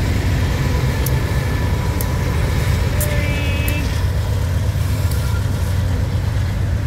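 Slow freight train rolling past close by, with the steady low rumble of the trailing GE C44-9W diesel locomotive going by and then autorack cars following. Light sharp clicks come about once a second.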